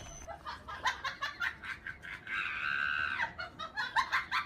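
Girls giggling and laughing in quick bursts, with a held high-pitched squeal about two seconds in.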